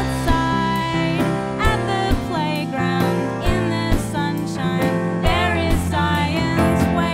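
Music: a song with singing over instruments and a steady beat.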